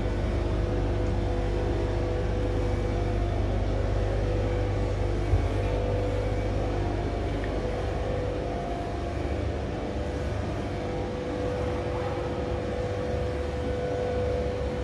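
Steady low rumble and hum of gallery background noise, with a single sharp click about five seconds in.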